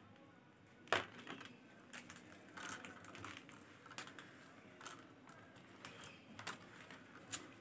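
Faint, irregular clicking of faceted beads knocking together as thread is pulled through them and the beaded bag is handled, with light rustling and a sharper click about a second in.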